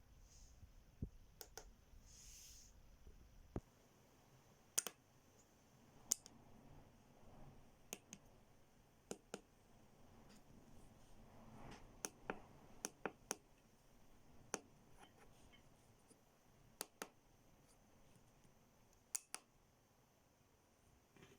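Sharp clicks over near silence, about fifteen at irregular intervals. A faint low hum cuts off with a click a few seconds in.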